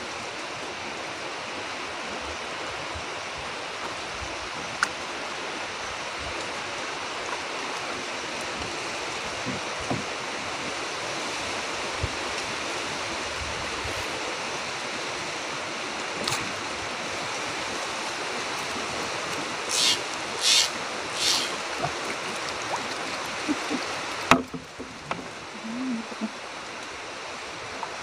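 Steady hiss of wind and water around a small wooden boat on a river. About twenty seconds in come three short, high, sharp sounds, and a few seconds later a sharp knock, after which the hiss drops away and only a few small sounds remain.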